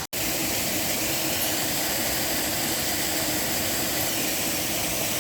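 Steady rush of water pouring over a stone-block dam waterfall, with a good flow going across it.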